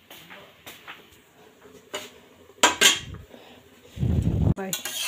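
Metal cooking pots and lids being handled on a stovetop: scattered light clinks, two loud clangs a little past halfway, then a brief low rumble about four seconds in as a lid is lifted, with more clatter at the end.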